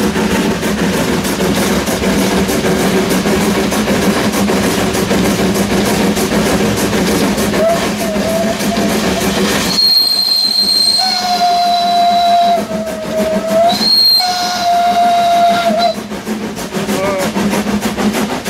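Krauss steam tramway locomotive FP 4 "Rimini" running with a steady clatter of fast regular beats, heard close up from its cab. About ten seconds in its steam whistle sounds two long blasts, then the running noise carries on.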